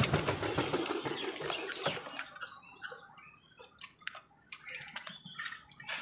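A flock of house crows squabbling over food: harsh calls and wing flaps, busiest in the first two seconds, then scattered sharp pecking clicks and short calls.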